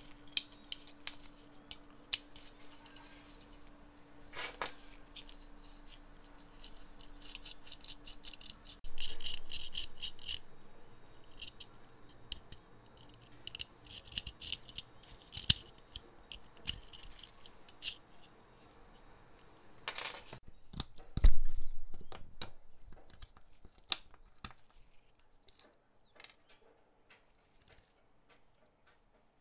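Small metal lighter parts being handled and worked by hand: scattered clicks and taps, a second-long scraping noise about a third of the way in, and a dull thump about two-thirds of the way in.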